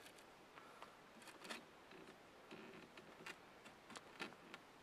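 Near silence with a few faint, scattered light clicks and knocks of long wooden poles being handled where they cross.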